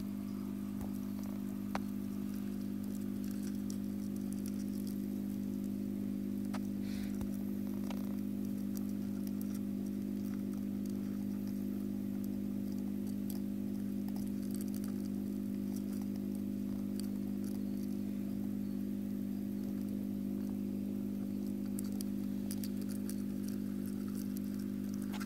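Steady low hum, even in level throughout, with faint scattered ticks and light rustling on top.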